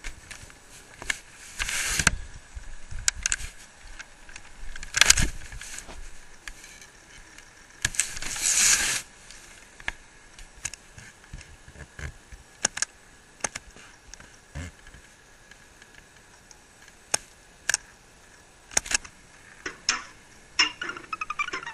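Scattered clicks, knocks and rustles of handling and movement close to a laptop's built-in webcam microphone, with louder rustling bursts about two, five and eight seconds in.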